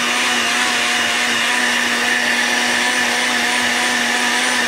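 Countertop blender motor running steadily, puréeing a thick green sauce of spinach, milk and cheese. It makes a loud, even hum with a whine above it.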